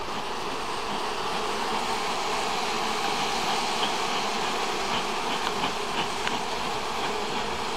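Steady buzzing of a honeybee colony over its opened hive, with many bees on the exposed comb.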